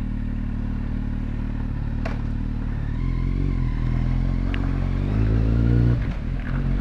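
Kawasaki Z800's inline-four engine running under a ride, steady at first, then rising in revs for a few seconds before dropping off sharply, as at a gear change, and pulling steadily again.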